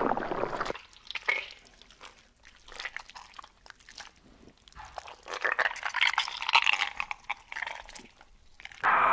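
Close-miked wet eating sounds from a mouthful of spaghetti in meat sauce: chewing, smacking lips and slurping in noodles, heard as a string of short wet clicks and smears. The sounds grow busier about five to seven seconds in.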